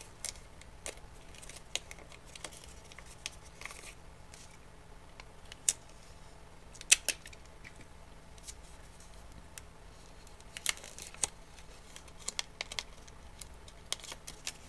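A strip of paper rustling and crinkling in the hands as it is twisted and taped into a Möbius strip, with scattered small sharp clicks of paper and tape, the loudest about seven seconds in.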